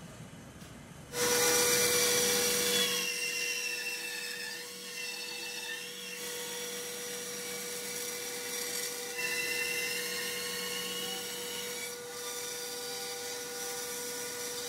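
Band saw starting up about a second in and running, its blade cutting a circle through a glued-up 2x4 tabletop turned on a circle-cutting jig's pivot. The cutting sound rises and falls over a steady hum.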